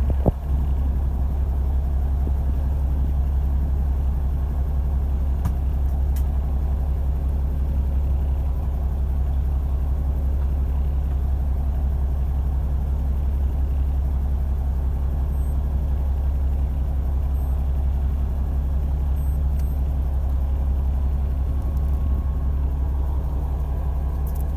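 Fishing boat's engine running steadily, a low drone that does not change.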